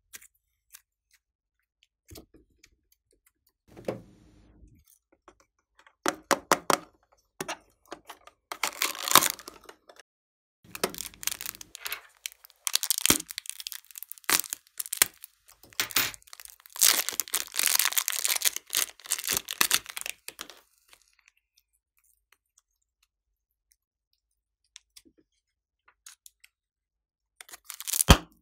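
Crinkling and crackling of plastic piping bags filled with soft clay, handled, cut with scissors and squeezed by hand, with the clay squishing and tearing as it is pulled. The sounds come in irregular bursts, then stop for several seconds before a short burst near the end.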